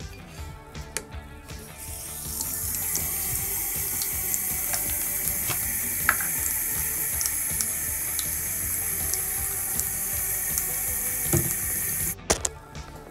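Bathroom sink faucet turned on, water running steadily into the basin, then shut off abruptly after about ten seconds.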